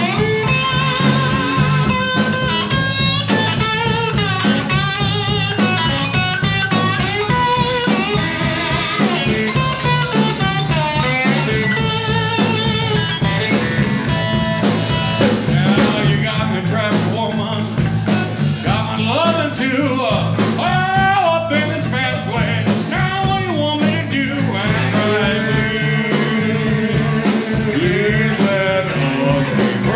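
A live blues band plays: an electric slide guitar carries the lead with gliding, wavering notes, over drums and electric bass.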